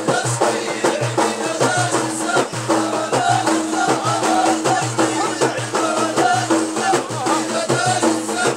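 Ahidous music: frame drums beaten in a quick, steady rhythm under a chorus of men's voices chanting together, with no pause.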